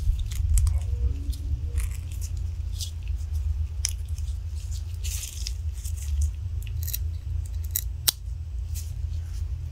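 Small, sharp metallic clicks and scrapes as a gas ring is worked into its groove on an AR-15 bolt by hand, over a steady low hum.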